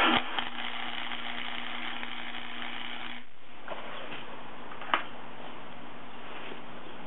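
Electric welding arc crackling and buzzing for about three seconds as a tack or short bead goes onto a 5/8-inch steel axle shaft, then cutting off suddenly. A single sharp click about five seconds in.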